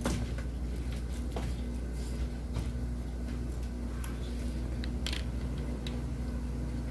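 Steady low electrical hum, with a few faint, scattered clicks and taps.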